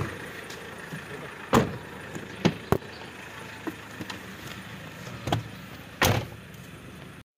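SUV's engine idling under several sharp thumps and clunks as people climb in with bags and a car door is shut. The loudest knocks come about 1.5 s in and near the end, then the sound cuts off suddenly.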